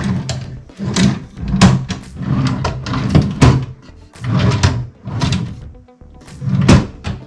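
Background music with loud percussive hits and sustained low notes.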